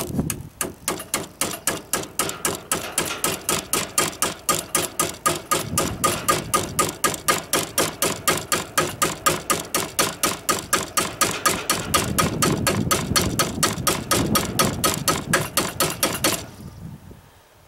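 Rapid, even metal-on-metal strikes, about four or five a second, as a Fiskars hatchet head hammers the bent steel blade of a Cold Steel Bushman knife laid on a wooden post, stopping near the end. This is cold forging: the ripple that a hard knot pushed into the knife's hollow-ground edge is being hammered back to straight.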